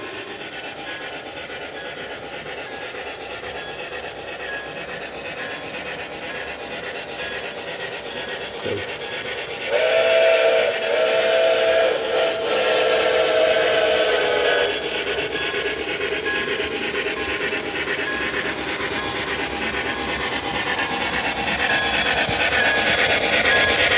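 Steam train running, with a chord-like steam whistle blown three times about ten seconds in, the last blast the longest.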